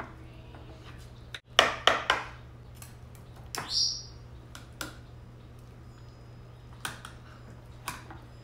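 Metal knife and spatula clinking and scraping against a glass loaf pan and a plate: a few sharp clinks about a second and a half in, a scrape near the middle, then a few scattered taps. A steady low hum runs underneath.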